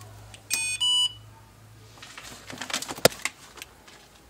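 Power Probe 4 circuit tester beeping twice in quick succession about half a second in, as it powers up on being clamped to the car battery. Then come light handling clatter from the probe and its leads and a sharp click about three seconds in.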